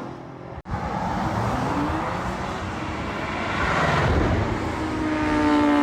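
Supercar engines running, with the sound cutting out for an instant just under a second in; near the end an engine accelerates, its note rising and getting louder.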